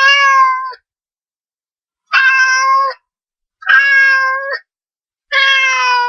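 Cat meowing four times, each meow a drawn-out, steady-pitched call of under a second with short silences between.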